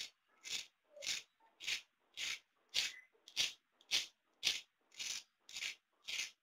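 Fork tines scraped back and forth across the crisp, shallow-fried crust of a potato patty (aloo tikki), a short crunchy scratch about twice a second, a dozen strokes in all.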